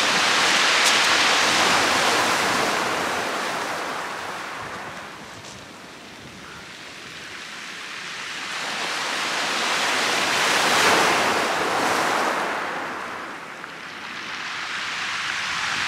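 Sea waves breaking and washing up a shingle beach, the surf swelling and fading twice: loudest about a second in and again about eleven seconds in.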